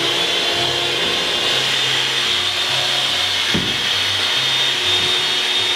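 Small electric hand mixer running steadily, its beaters whisking a tub of glue and hot water; the user thinks one side of it doesn't work.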